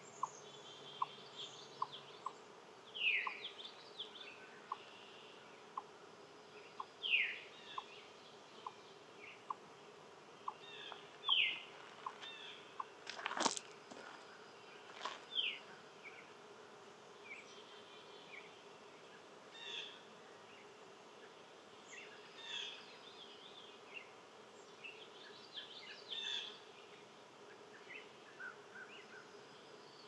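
Birds calling outdoors: several quick downward-sliding calls and scattered chirps over a steady low buzz. A short ticking call repeats somewhat faster than once a second for the first dozen seconds, and a single sharp click sounds about halfway through.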